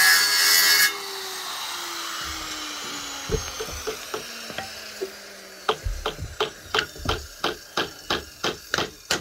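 A handheld electric cutter (grinder-type saw) cuts for about a second and is switched off, its motor whine falling as the blade spins down. From about halfway through, steady hammer blows follow at about three a second.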